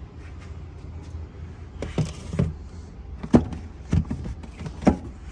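About five sharp knocks and clunks in a row, from spare tire kit parts such as the jack being handled and set into a car's trunk well.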